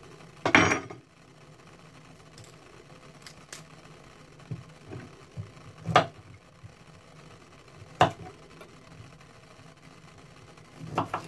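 Kitchen knife cutting cauliflower florets and knocking on a wooden cutting board: a handful of separate sharp knocks, the loudest about half a second in, others near six and eight seconds and a short cluster near the end, over a faint steady low hum.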